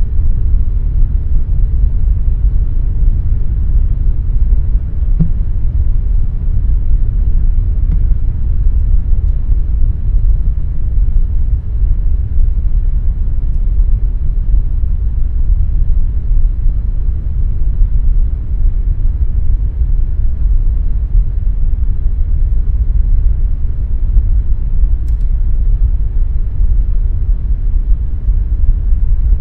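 Air conditioner running steadily: a loud, even low rumble of fan and airflow noise with no change throughout.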